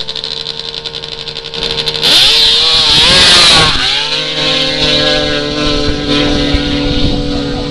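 Racing snowmobile engines at an ice drag race. They hold a steady buzzing note, then launch at full throttle about two seconds in with a sharp jump in loudness. The pitch sweeps up and then falls as the sleds race past, and they run on in a steady high drone down the track.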